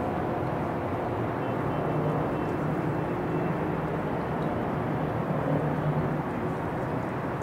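Steady low rumble of running engines, with a faint thin high tone joining about a second and a half in.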